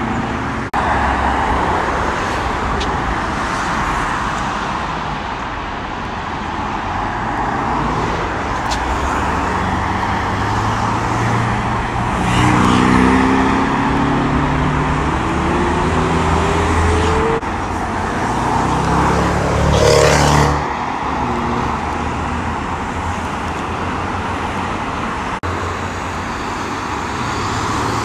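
Cars accelerating onto a dual carriageway over a steady rush of traffic and tyre noise. About twelve seconds in, one engine revs up, its pitch rising in steps. A car passing close is loudest about twenty seconds in.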